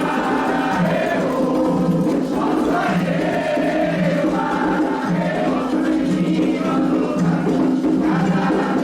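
Candomblé toque for Ossain: drums playing a steady rhythm under a group of voices singing a chant together.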